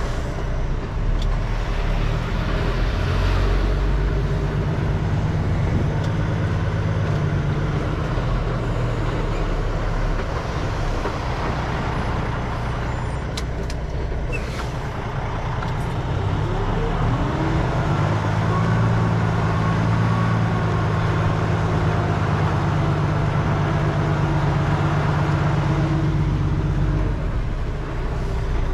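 Semi truck's diesel engine running, rising and falling in pitch as the truck is manoeuvred into a parking spot. A few sharp clicks come about halfway through.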